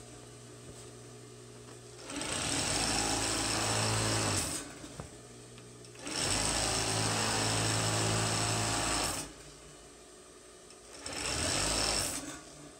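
Pfaff 463 industrial single-needle lockstitch sewing machine stitching a straight seam through fabric. It runs in three bursts, about two, three and one and a half seconds long, with a low steady hum between runs.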